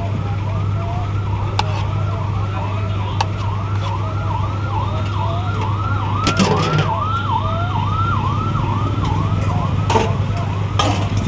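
Electronic siren in a fast repeating warble, about two and a half swoops a second, over a steady low hum, with a few sharp clatters about six and ten seconds in.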